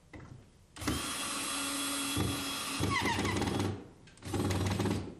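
Cordless drill driving screws through the top window trim into the wall sheathing. It makes two runs: a long motor whine of about three seconds that drops in pitch near its end as the screw pulls in, then a short burst of under a second.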